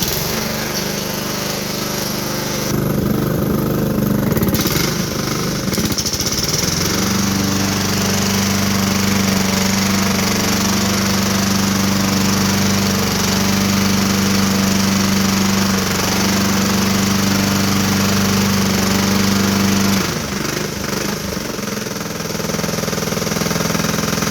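Lawn mower engine running hard with a repetitive knock from the bottom end, which the owner suspects is rod knock, though he allows it could be a bent blade. It holds a steady speed for most of the time, then drops back and runs rougher near the end.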